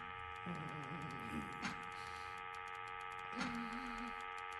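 Sound design of an imaginary machine: a steady electric hum of several held tones under fast, irregular ticking clicks, with a couple of short warbling tones and a few louder clicks.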